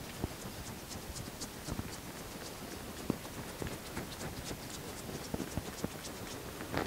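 Hands slapping lightly against the skin of a man's neck and under his chin in percussion massage (tapotement): soft, quick slaps, about three a second.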